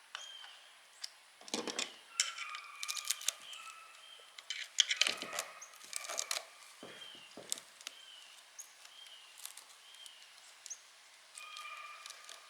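Scattered clicks, rustles and scrapes of hands working over an electric motor's stator windings and leads, tearing at the insulation between the coils.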